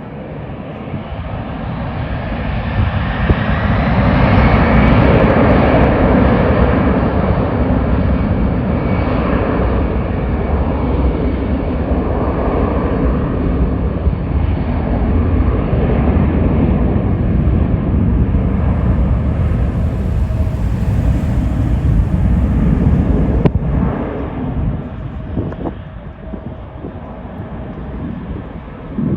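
Jet airliner's engines at takeoff thrust on the runway, building over the first few seconds with a rising whine, then a long, steady rumble that fades away a few seconds before the end.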